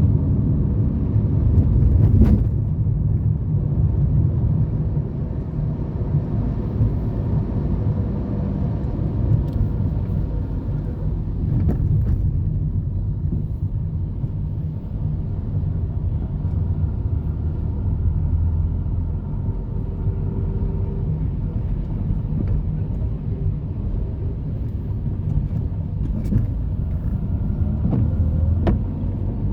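Car noise: a steady low rumble with a few faint clicks.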